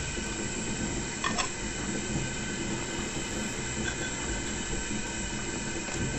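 A steady machine-like drone with hiss and faint held tones, and one light click a little over a second in.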